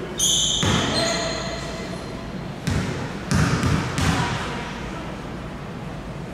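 Basketball game in a gym: a short referee's whistle blast just after the start, then a few irregular basketball bounces on the court over a steady hubbub of voices in the hall.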